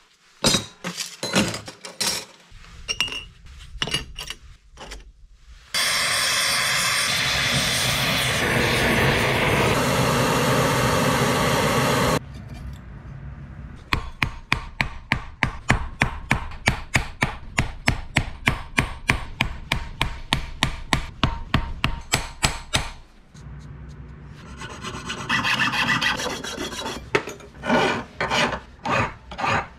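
Hammer blows on a copper bar resting on a steel block, an even two to three strikes a second for about nine seconds. Before them comes a steady loud rushing noise lasting about six seconds, and near the end a metal file rasps on the copper spoon in repeated strokes.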